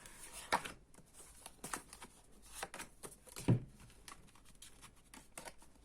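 Playing or tarot cards being handled on a table: scattered soft rustles and card snaps, with one heavier knock about three and a half seconds in.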